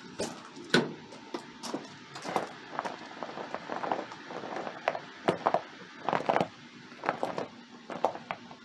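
Irregular knocks, clicks and scrapes, several a second, from hands-on work on the Geo Tracker's front end while the front wheels are being turned to clear a bracket for the tow bar tube.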